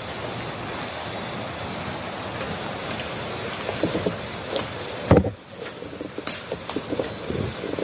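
Steady night outdoor ambience with a constant high-pitched drone. A sharp thump about five seconds in, then several softer knocks and rustles.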